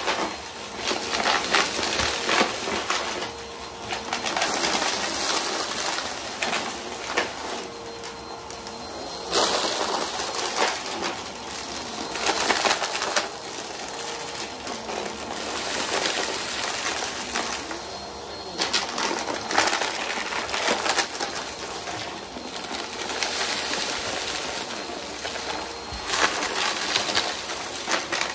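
Bissell bagless upright vacuum running as it is pushed back and forth over a rug covered in rubber bands, hair, glitter and gritty debris. The debris crackles and rattles up into the machine, swelling with each pass over the pile and easing in between.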